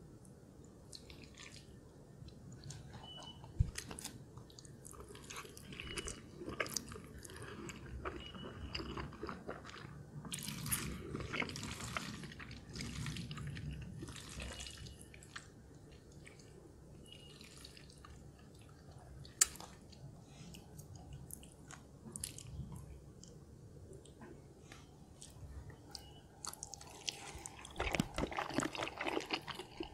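A person eating instant noodles: soft chewing and mouth smacks, with two sharp clicks, then a louder run of slurping as a mouthful of noodles is drawn in near the end.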